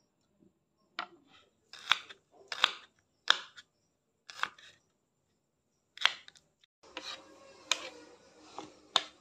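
Kitchen knife chopping garlic on a wooden cutting board: about eight sharp knocks of the blade on the board at irregular spacing, with a pause of over a second in the middle.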